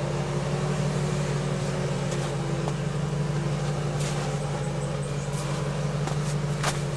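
Jeep engine running at steady revs as the Jeep crawls up a snowy trail, with a few faint clicks about four seconds in and again near the end.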